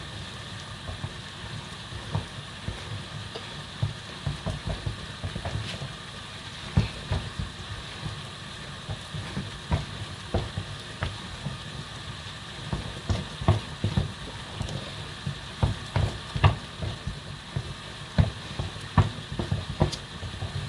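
Thick semovita being stirred and turned in a pot, with many irregular knocks and thuds of the utensil against the pot, more frequent in the second half, over a steady hiss.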